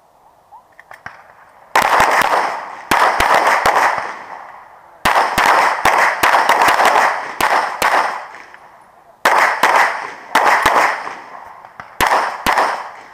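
Pistol shots fired in rapid strings during a timed USPSA stage. Close-spaced loud shots start about a second and a half in, each ringing off, with short pauses between the strings.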